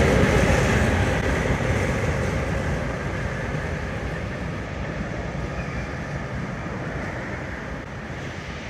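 Heritage passenger train hauled by a 42 class diesel-electric locomotive passing and drawing away, its engine and wheel rumble fading steadily.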